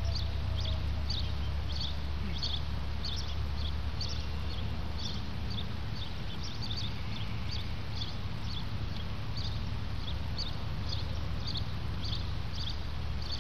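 Outdoor ambience: short high chirps repeating about twice a second over a steady low rumble.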